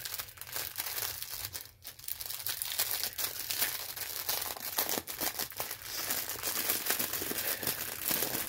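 Clear plastic bags crinkling as they are handled: a strip of small resealable packets of diamond painting drills turned over inside a larger clear plastic bag and drawn out of it, with a steady run of small crackles.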